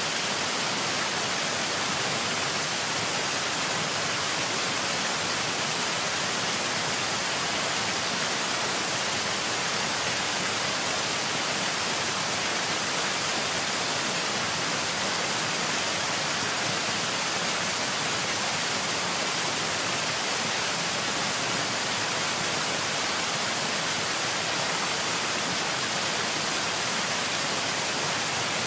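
A steady, even hiss-like rushing noise that does not change in level.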